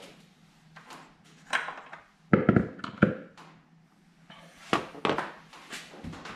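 Hands working in a car's engine bay: scattered plastic clicks and taps, with a cluster of louder knocks about two and a half to three seconds in and more near the end, as a plastic funnel is set into the oil filler neck.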